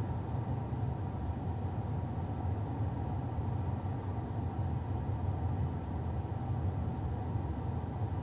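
A steady low rumble, even throughout with no distinct events.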